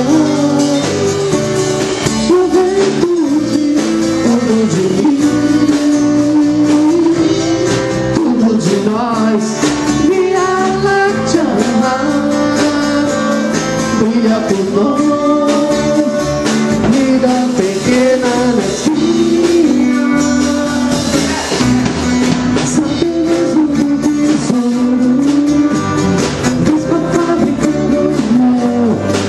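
Live band playing a song: a man sings lead over strummed acoustic guitar and band accompaniment, loud and continuous.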